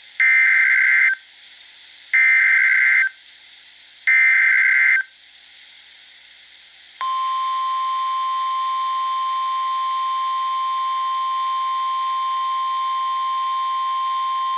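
NOAA Weather Radio Emergency Alert System tones opening a tornado warning. First come three harsh one-second bursts of SAME header data, two seconds apart. After a short pause, the single steady 1050 Hz warning alarm tone starts about seven seconds in and holds.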